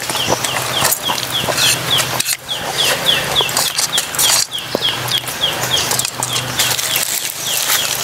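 Chicks peeping over and over, short falling peeps about three a second.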